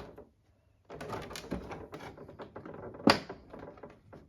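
Cutting pliers and cardboard packaging being worked at to free wire fasteners on a figure box: a string of small clicks and rustles, with one sharp click about three seconds in.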